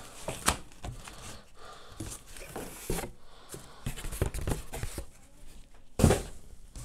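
Cardboard and plastic packaging being handled: irregular rustling and crinkling with light clicks and knocks, and a dull thump about six seconds in.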